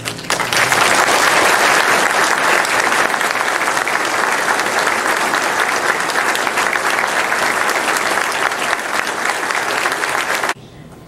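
Audience applauding steadily, then cut off abruptly about ten seconds in.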